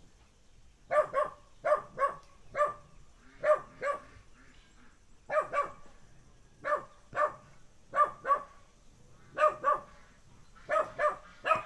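A dog barking over and over in short, sharp barks, mostly in pairs, starting about a second in.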